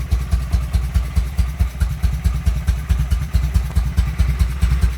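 Harley-Davidson Shovelhead V-twin motorcycle engine idling as it warms up, with a steady beat of exhaust pulses, several a second. The carburettor's low-speed jet has been richened to cure spitting back.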